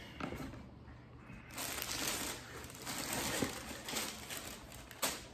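Tissue paper rustling and crinkling as a sneaker is unwrapped and lifted out of a cardboard shoebox, with a single sharp tap near the end.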